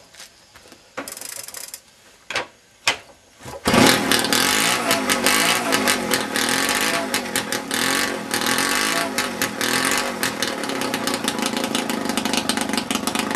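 Puch E50 50 cc two-stroke single-cylinder moped engine starting after a few short knocks, catching about four seconds in and running with revs rising and falling. It runs through a Simson exhaust with a rattling, crackling sound, called "knattert und knistert".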